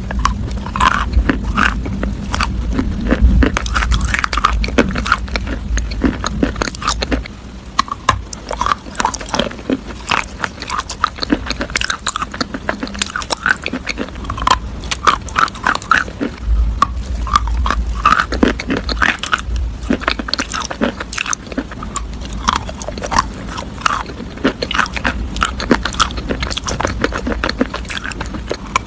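Close-miked crunchy food being bitten and chewed: a dense, irregular run of crackling crunches with a heavy low thud beneath.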